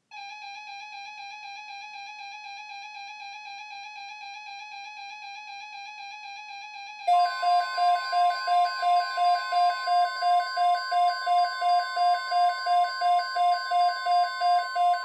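Weather radio alert alarm: a warbling electronic tone for about seven seconds, then a louder rapid beeping, nearly three beeps a second, over a steady higher tone that cuts off at the end. It is the receiver sounding off for an incoming severe thunderstorm watch alert.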